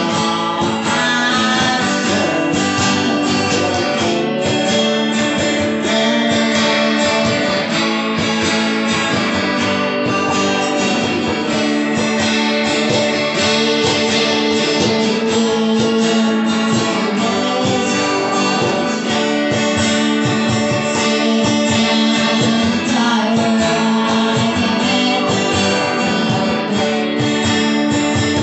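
Live acoustic music: two acoustic guitars strumming together, kept in time by hand-struck percussion.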